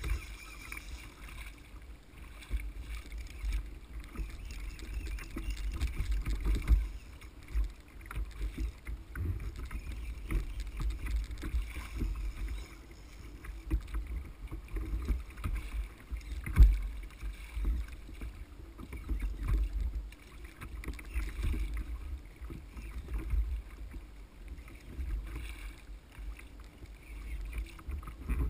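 Choppy sea water slapping and sloshing against a kayak hull, with wind buffeting the camera microphone in uneven gusts, and a single sharp knock about sixteen seconds in.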